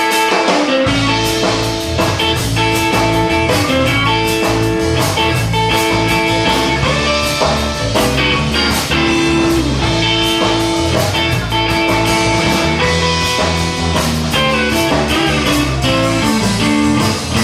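Live blues-rock band playing an instrumental break: electric guitar leading over bass and drums.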